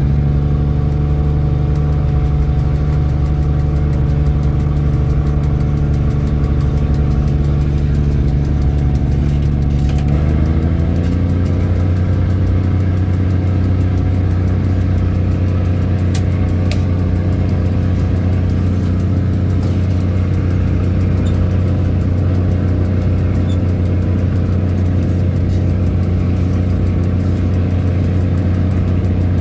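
Diesel train engine running under power as the train pulls away, its pitch rising at the start and stepping up to a higher, steady note about ten seconds in.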